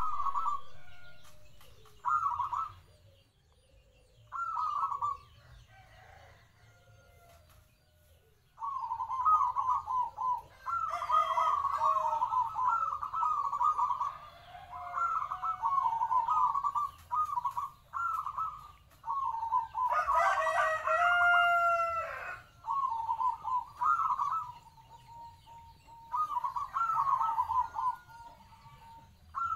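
Caged zebra dove (perkutut) cooing: short trilling coo phrases repeated with gaps at first, then nearly without pause from about a third of the way in. Once, about two-thirds through, a rooster crows in the background.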